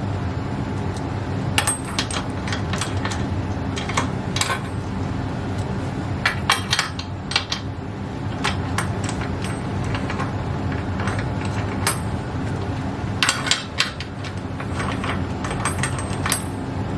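Metal clicks and clinks of a socket wrench with an extension working a bicycle's rear axle nut loose, in scattered clusters over a steady low hum.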